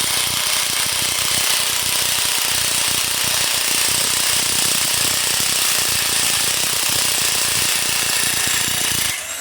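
Bauer cordless impact wrench hammering steadily on a 15 mm cylinder head bolt for about nine seconds, then stopping shortly before the end. The bolt is slow to come loose, and the operator suspects the battery is getting low.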